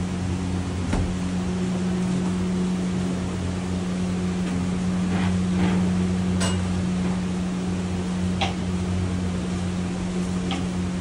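Steady low machine hum, with a few light clicks and taps scattered through it.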